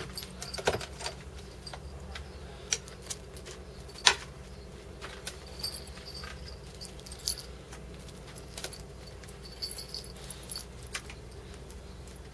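Metal cat-collar tags jingling in short, scattered clinks as cats move about, with one sharper click about four seconds in.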